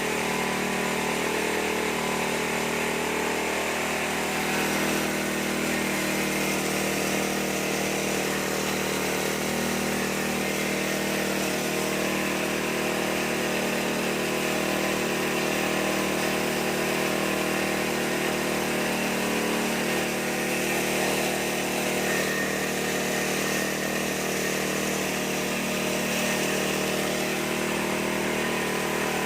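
Corn sheller machine running steadily, its motor holding an even speed.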